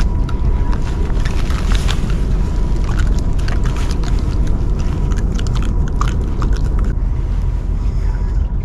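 Close handling noise: rustling and crackling clicks over a steady low rumble, with the crackling stopping about seven seconds in.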